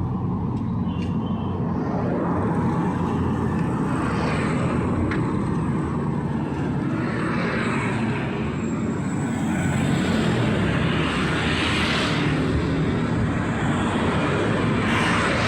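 Street traffic: a steady drone of engines and tyres, with vehicles swelling past every few seconds.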